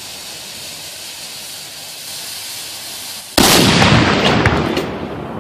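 A steady hiss, typical of a burning cannon fuse, for about three seconds, then a homemade steel-pipe cannon fires with one loud blast that dies away over the next two seconds, with a few sharp cracks in the fade.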